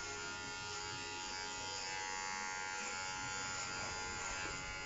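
Electric hair clippers with a plastic guard buzzing steadily as they are run up through short hair on the side of the head.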